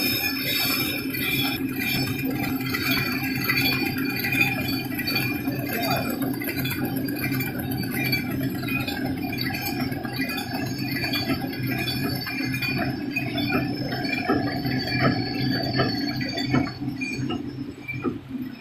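Automatic plastic cutlery packing machine running: a steady machine hum with continual light clicks and clinks from its moving parts.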